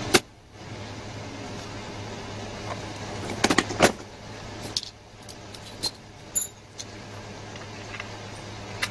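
Scattered clicks and metallic clinks of hand tools and engine parts being handled while a small engine blower is put back together, with a quick cluster of knocks about three and a half seconds in. A steady low hum runs underneath.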